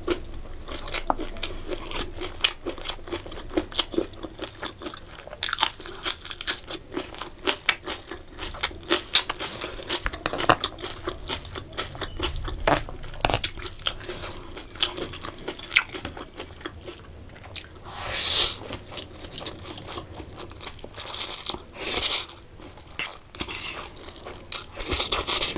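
Close-miked crunching and chewing of crispy fried chicken bites (chicken diamonds), with many sharp crunches.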